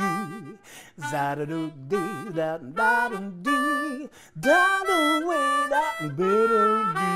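Instrumental theme music with a lead melody of short notes that waver and bend in pitch.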